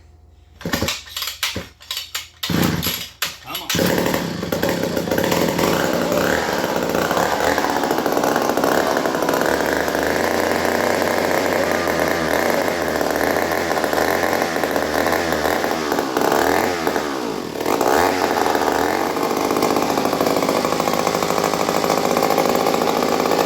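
1950s McCulloch 35 two-stroke chainsaw starting: a few short bursts as it is pulled over, then it catches about four seconds in and runs steadily. About two-thirds of the way through the engine note dips briefly and then climbs as it is revved.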